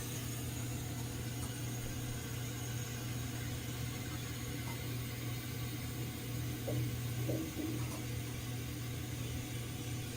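Handheld gas soldering torch burning with a steady hiss and low rumble while it heats a pipe joint to soldering temperature.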